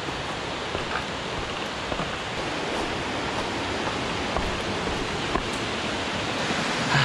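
Steady rush of water pouring over a dam spillway, an even roar with a few faint clicks on top.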